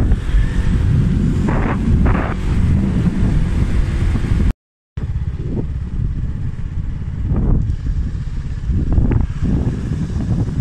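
Heavy wind buffeting the microphone on a moving scooter, a constant low rumble with the ride's engine and road noise underneath. The sound drops out for a split second a little before halfway.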